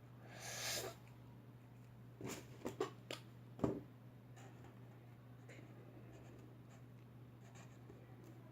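Felt-tip pen writing on paper: faint scratching strokes, with a few light taps between about two and four seconds in.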